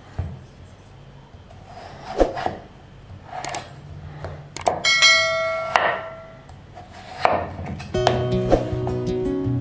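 Kitchen knife cutting through raw peeled potatoes and knocking on a wooden chopping board, several separate cuts spaced a second or so apart. A short bell-like chime rings about five seconds in, and plucked guitar music comes in near the end.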